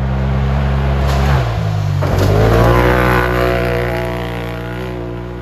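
Off-road racing UTV engine running hard. Its pitch drops in steps in the first two seconds, then holds fairly steady while it slowly fades.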